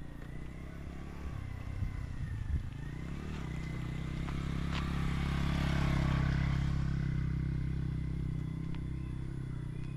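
A motorcycle approaching and passing close by, its engine running steadily and growing louder to a peak about six seconds in, then fading as it moves away.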